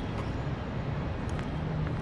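Outdoor traffic ambience: a steady low rumble of passing vehicles.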